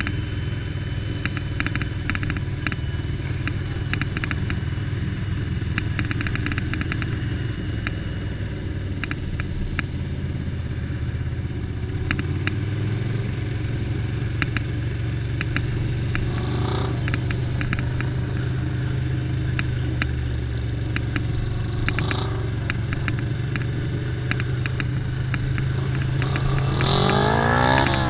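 Ducati Paso 750's 90-degree V-twin running at low speed under a rider and passenger, heard from the helmet, with frequent light clicks and clatter. Near the end an engine revs up with a rising pitch.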